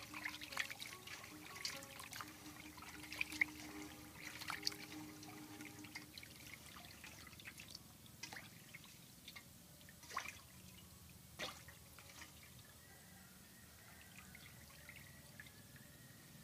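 Small fish being rinsed by hand in an aluminium basin of water: splashing and dripping, busy for the first several seconds, then a few separate splashes and drips as handfuls of fish are lifted out.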